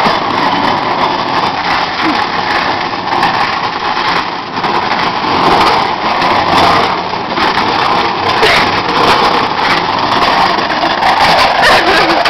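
A microwave oven being dragged along the ground, scraping continuously and loudly, the rasp swelling and dipping as it is pulled.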